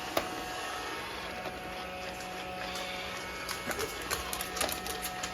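Roomba robot vacuum running with a steady motor whir and hum. A sharp click sounds just after the start, and a few light clicks and taps come in the second half.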